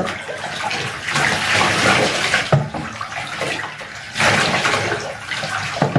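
Water poured from a plastic jug over a lathered dog's back, splashing off its coat into a bathtub as the shampoo is rinsed off. Two pours, the second starting a little after halfway.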